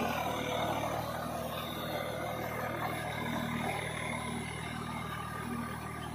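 Swaraj 744 FE tractor's three-cylinder diesel engine running steadily under load while driving a Shaktiman rotavator through mud, fading slightly as the tractor moves off.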